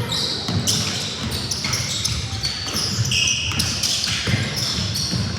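Basketball being played on an indoor court: many short, high sneaker squeaks on the hardwood over the low thuds of the ball bouncing and players' footfalls.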